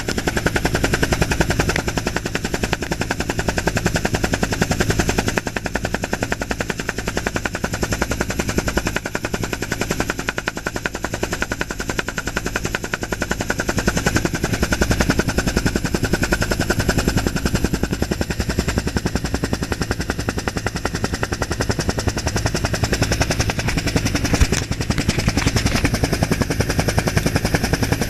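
Helicopter in flight, its rotor blades chopping in a fast, even beat over the steady run of the engine, heard from inside the cabin with the side door open.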